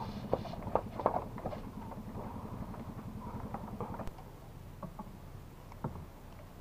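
Scattered light clicks and knocks from a spinning rod and reel being handled while fishing a micro jig, over a low steady hum.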